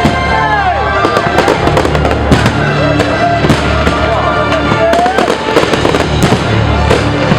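New Year's fireworks display: a dense, rapid string of bangs and crackles from bursting shells, with music playing underneath.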